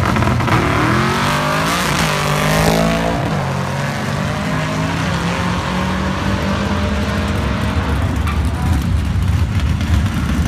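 Manual-transmission drag cars launching off the line. The engines rev hard, and the pitch climbs and then drops at quick gear changes in the first three seconds before settling into a steadier engine note as the cars run down the strip.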